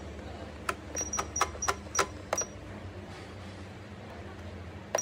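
Rotary control knob on an electric steamer pot being turned to set the cooking time: seven quick clicks over about two seconds, each with a short high beep. One more click and beep come near the end.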